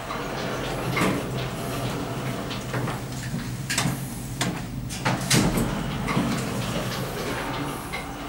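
Modernised Express hydraulic lift running, heard from inside the car: a steady low hum with a scattering of short clicks and knocks.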